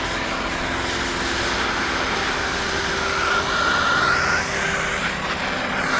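Steady rushing hiss of air forced through a freshly repacked Yamaha YZ125 exhaust silencer, blowing dust and smoke out of the tip. A thin whine rises about three and a half seconds in and drops back near the end.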